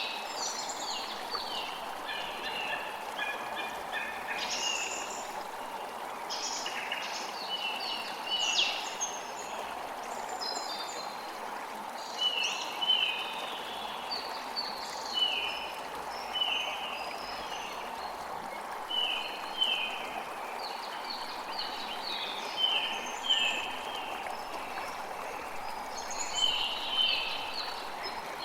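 Birds chirping and calling over the steady rush of flowing water. The calls come as clusters of short notes, many dipping slightly in pitch, every second or two.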